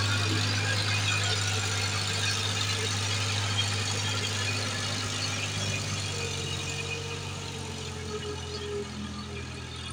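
Tractor engine running steadily with a low drone, gradually getting quieter.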